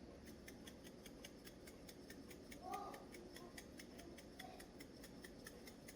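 Near silence: quiet room tone with a faint, even ticking, about five ticks a second, and a brief faint murmur a little under halfway through.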